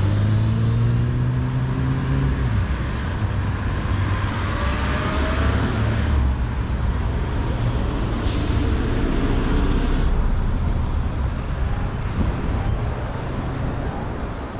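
Road traffic rumbling steadily as vehicles pass. In the first couple of seconds one engine's note falls as it slows, and later two louder rushing passes swell and fade.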